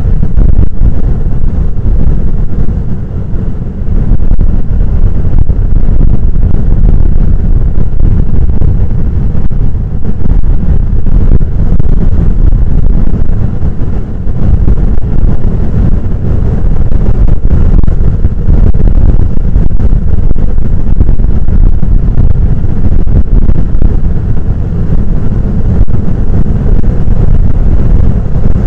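Loud, steady low roar of heavy shore-break surf at the Banzai Pipeline, mixed with wind buffeting the microphone.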